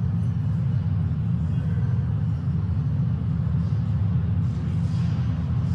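Steady low rumble of a subway train running, heard from inside the passenger car.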